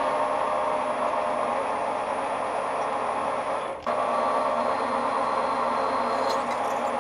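Metal lathe running steadily with a hum and several steady tones while a tailstock drill bores the centre hole of a flywheel blank, first with a centre drill and then with a twist drill. The sound dips and cuts about four seconds in, where the shot changes.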